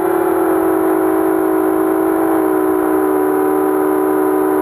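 Motors and King Kong 5045 propellers of a 230 mm FPV quadcopter (T-Motor 2206 2000 kV brushless motors on a 3S battery) whining steadily in fast low flight, heard from the onboard camera. The single whine splits into two close tones just past the halfway mark.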